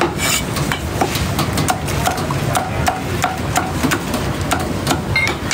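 A cleaver chopping roast pig on a thick wooden chopping block: a steady run of sharp chops, about three a second.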